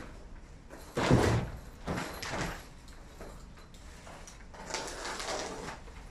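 Cardboard box and foam packing being handled while unboxing an LED video-wall cabinet: a heavy thump about a second in, a smaller knock near two seconds, then scraping and rustling of foam and cardboard later on.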